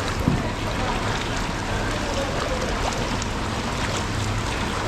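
Heavy rain falling on a flooded street, a steady hiss with scattered drop ticks and a faint low hum underneath.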